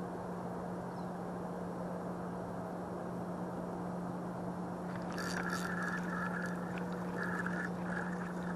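A spinning reel cranked in short spells from about five seconds in, whirring with light clicks as a bluegill is reeled in. Under it runs a steady hiss and low hum.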